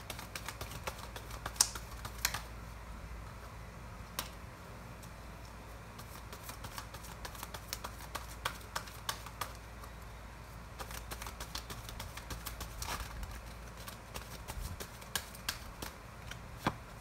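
A tarot deck being shuffled and handled by hand: irregular runs of quick card clicks and snaps in bunches, the sharpest two near the start.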